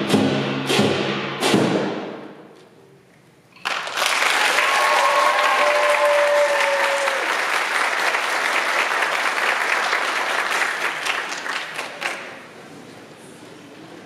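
Lion dance percussion of a big drum and hand cymbals plays its last three strikes, which ring out and die away. About four seconds in, the audience bursts into applause with a whoop, and the applause fades out near the end.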